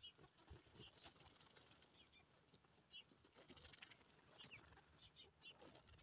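Faint short high chirps from caged sandgrouse, scattered and irregular, over soft scratching and rustling of the birds in loose dry earth as they dust-bathe.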